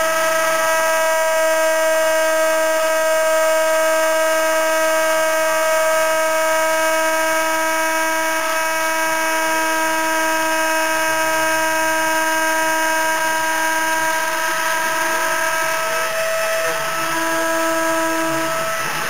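CNC router's spindle whining at a steady high pitch while it mills wood. Near the end the axis motors add short whirs that rise and fall in pitch as the head moves.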